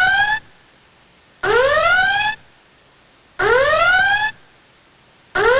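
Electronic whoop alarm: a tone that sweeps upward for about a second, then stops and repeats every two seconds. Two full whoops sound in the middle, and a new one starts near the end.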